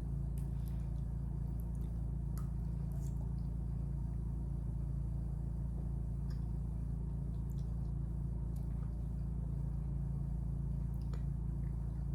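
A steady low hum runs throughout, with a few faint scattered mouth clicks and squishes as a salted caramel cookie is chewed.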